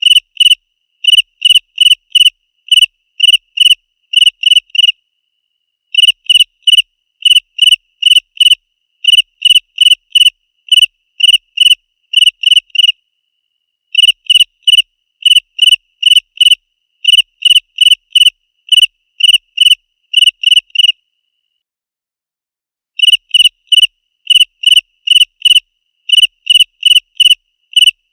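A cricket chirping loudly and clearly in a steady run of short, high chirps, about two to three a second. The chirping stops for a second or two three times before resuming.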